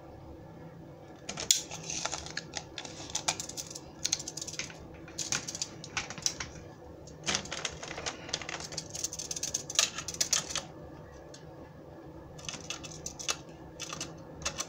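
Runs of rapid clicking and rattling as a steel tape measure and a hard plastic toy are handled and repositioned, about nine seconds of it, then a short pause and a second shorter run near the end.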